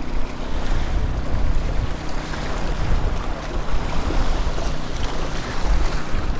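Sea waves washing and splashing against the rock blocks of a jetty, with wind buffeting the microphone and a faint steady hum beneath.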